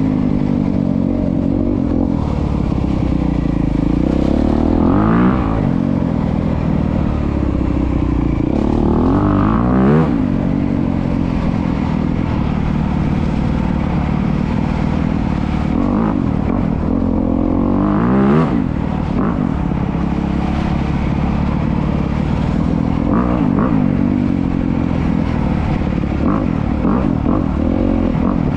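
2025 Honda CRF250R's single-cylinder four-stroke engine running hard while being ridden, revving up sharply about five, nine and eighteen seconds in, with stretches of steady throttle between.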